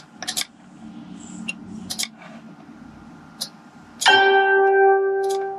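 Scattered mouse and keyboard clicks, then about four seconds in a single note played back by the music notation software as it is entered, starting sharply and ringing as it fades.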